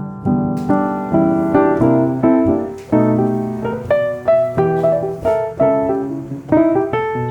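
Background music: solo piano playing a gentle melody of chords and single notes, several notes a second.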